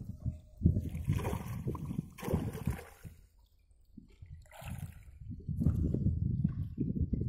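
Water splashing and sloshing in irregular bursts as a hooked peacock bass thrashes at the surface, with a short lull partway through and steadier splashing near the end.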